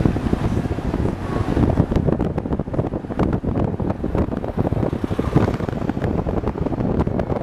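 Car driving along, with steady road rumble and wind buffeting the microphone in irregular gusts.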